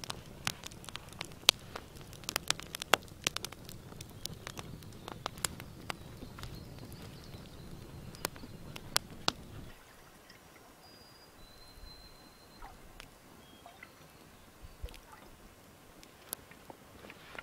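Campfire crackling with sharp, irregular pops. About ten seconds in the sound drops quieter, leaving fainter crackles and a few short high whistles.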